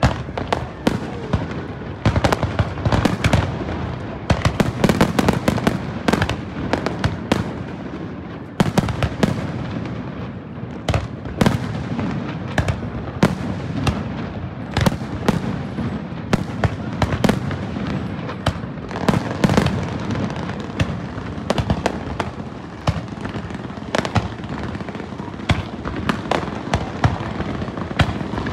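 Fireworks display: aerial shells bursting in a dense, irregular run of sharp bangs and crackling, several reports a second.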